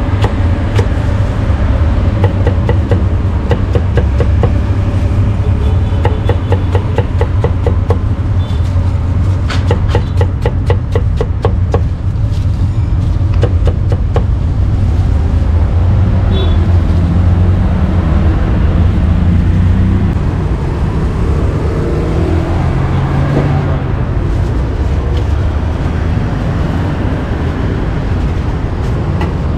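Cleaver chopping cucumbers on a thick round wooden chopping block: a run of sharp knocks for about the first half, coming fastest just before the middle, then stopping. A steady rumble of road traffic runs underneath.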